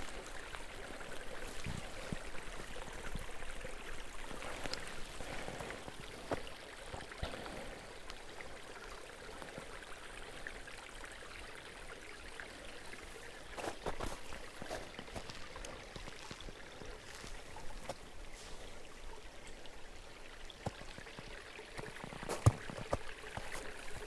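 Small forest brook running steadily, with a few footsteps.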